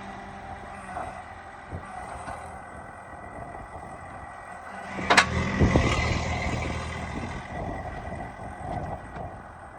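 Backhoe's diesel engine running steadily, with a sharp clank about five seconds in, after which the engine runs louder for a couple of seconds.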